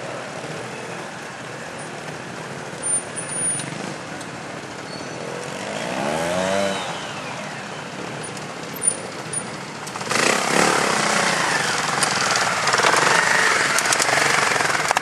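Sidecar trials outfit's engine revving, one rev rising and falling about six seconds in, with a few short sharp knocks around it. From about ten seconds in it runs louder with rapid firing pulses as the outfit comes right up to the camera.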